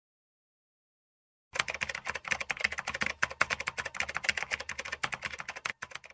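Computer keyboard typing sound effect: fast, continuous keystrokes starting about a second and a half in and running for about four and a half seconds.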